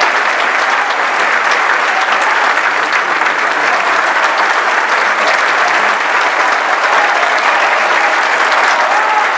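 Theatre audience applauding steadily: a dense, even clatter of many hands clapping.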